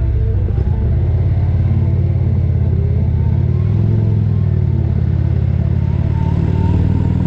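2023 Indian Roadmaster's Thunder Stroke 116 V-twin engine running steadily while riding, with small shifts in pitch.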